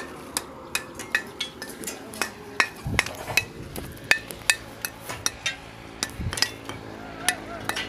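Mason's hammer knocking and chipping a fired clay brick held in the hand: rapid, irregular sharp clinks, several a second, with two duller thumps.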